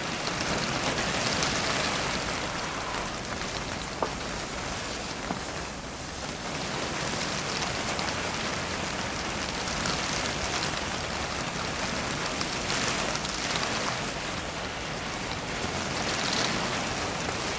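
Heavy rain falling steadily, an even hiss of drops, with one small knock about four seconds in.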